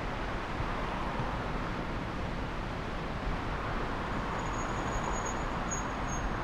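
Steady city street traffic noise, an even rumble and hiss, with a faint thin high tone in the second half.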